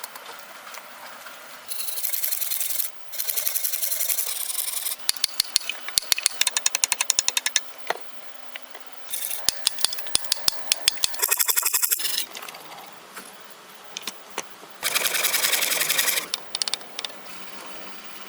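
A power tool runs in several short bursts, each a second or two of fast rattling. Between the bursts come runs of rapid, evenly spaced clicks.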